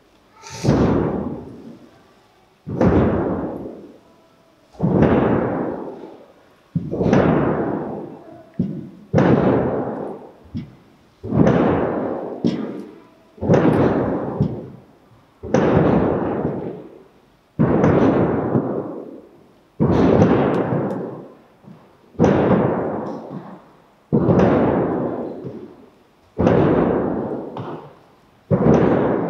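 A hand drum struck slowly and evenly, about one beat every two seconds. Each beat starts suddenly and dies away in a long echo in the church.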